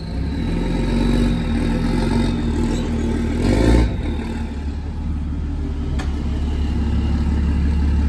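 Lifted pickup truck's engine running as it pulls slowly along the street: a steady low drone with a brief louder burst about three and a half seconds in and a single click near the end.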